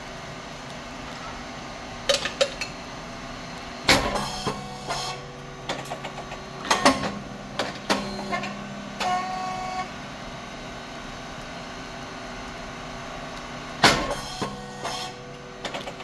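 Puffed rice cake machine (SYP35100) running its press cycle: a steady hum, with a sharp bang about four seconds in and again near the end as the heated moulds open and the compressed rice mix puffs into three rectangular cakes. Lighter clicks and clanks of the moving mould come in between.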